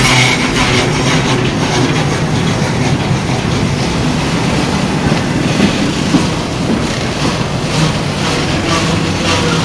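CSX intermodal freight train's trailer-carrying flatcars rolling past at close range: steel wheels on the rails making a steady, loud running noise.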